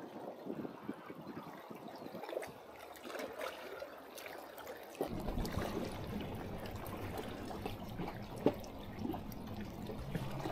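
Seawater lapping and trickling among the gaps of concrete tetrapods on a breakwater, with many small clicks and splashes. A low rumble joins about halfway through, and there is one sharper click near the end.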